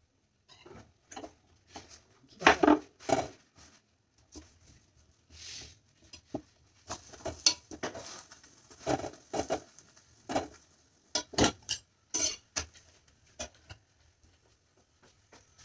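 Irregular clinks and knocks of steel kitchen utensils: a spatula on the griddle and steel bowls and pans being handled while parathas cook, the loudest about two and a half seconds in.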